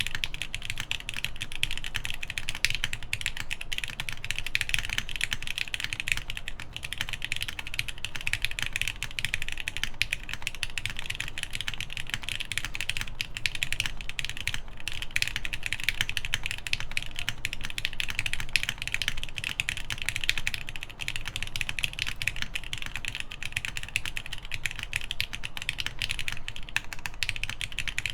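Continuous fast typing on a mechanical keyboard with lubed Gateron Ink linear switches, 70 g springs, GMK keycaps and a half FR4 plate: a dense, even run of key clacks.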